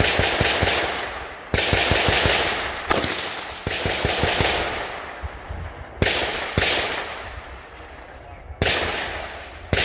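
Rifle shots fired one at a time at an uneven pace, about seven in all. Each loud crack is followed by a long echoing tail.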